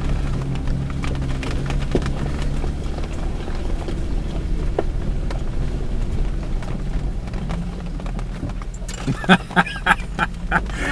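A 4x4's engine running low and steady as it crawls through a rocky creek, with scattered clicks, knocks and rattles from the bouncing vehicle and its loose gear. A quick run of sharper, louder knocks comes near the end.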